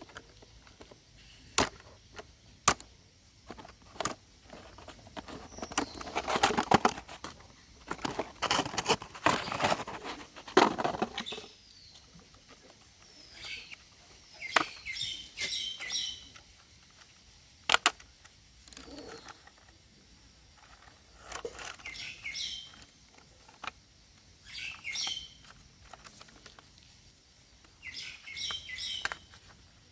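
Handling noise: scattered sharp clicks and a few seconds of rustling, with short, high chirping sounds in clusters near the middle and end.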